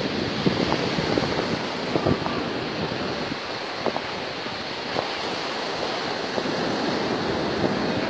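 Sea surf washing onto a sandy beach in a steady rush, with wind buffeting the microphone in short, uneven thumps.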